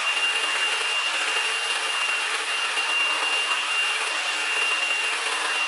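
Hair dryer blowing: a steady rush of air with a thin, high whine held on one pitch. It cuts off abruptly right at the end.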